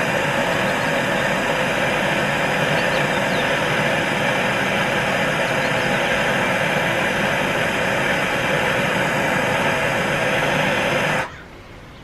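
Handheld gas torch burning with a steady hiss as its flame heats a cracked aluminum motorcycle rim to melt an aluminum welding rod into the crack. The rod is not melting. The flame shuts off suddenly about eleven seconds in.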